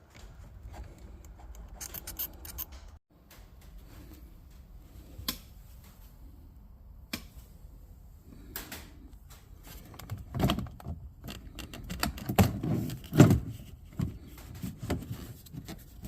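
Hands working behind a boat's dash panel, screwing the plastic retaining nut onto the back of a USB charger socket: scattered clicks, scrapes and rubbing, with a run of louder knocks and bumps about ten to thirteen seconds in.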